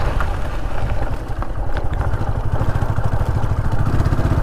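Motorcycle engine running while the bike is ridden, a fast even firing pulse, with a few light clicks; the engine grows a little louder near the end.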